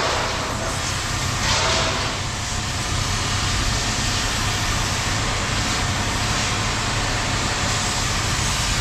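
A vehicle engine running steadily, with a constant low rumble and hiss and two brief louder swells in the first two seconds.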